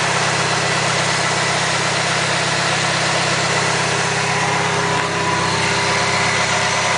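1995 Mitsubishi Eclipse RS's naturally aspirated four-cylinder engine idling steadily, freshly filled with new oil and running smoothly.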